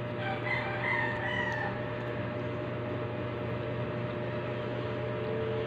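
A rooster crowing once, a call of about a second and a half just after the start, over a steady low background hum.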